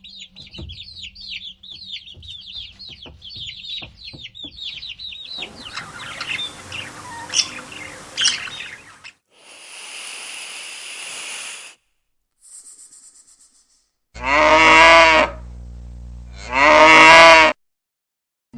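Two loud cow moos near the end, each about a second long. Before them come separate clips: rapid bird chirping for the first five seconds, a short noisy stretch, and a steady high buzz lasting a couple of seconds.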